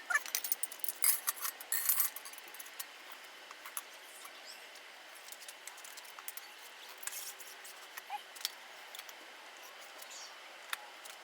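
Scattered metal clicks and clinks of tire irons against a motorcycle wheel rim as the tire bead is levered on. They come thick in the first two seconds, then only now and then.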